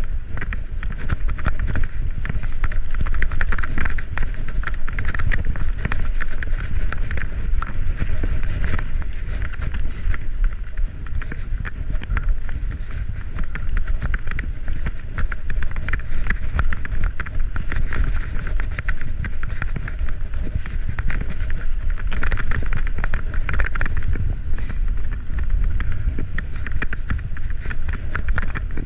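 Wind buffeting the microphone of a camera on a moving bicycle, a steady low rumble mixed with road and tyre noise.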